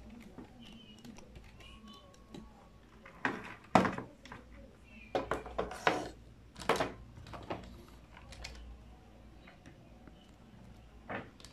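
Irregular clicks and knocks from handling a HUINA 1592 remote-control excavator model on a table, with the sharpest knock about four seconds in and a quick run of clacks a second or two later.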